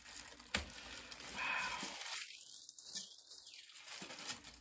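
Clear plastic protective wrap on a new handbag's handles crinkling and rustling as it is handled, with a sharp click about half a second in.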